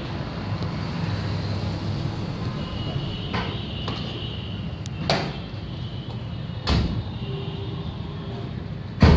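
A Hindustan Ambassador car's engine running as the car pulls up and stops, with three sharp door thuds about five, seven and nine seconds in as its doors open and shut. The last thud is the loudest.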